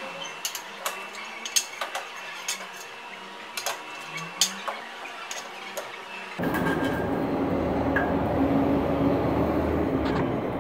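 Scattered light clicks and knocks of a metal hand tool and glazing profiles being handled. About six seconds in, a steady, louder background rumble with a low hum starts abruptly.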